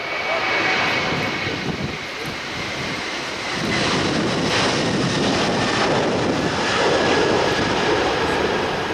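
Airliner's jet engines passing close: a steady rush with a faint high whine, growing louder about three and a half seconds in.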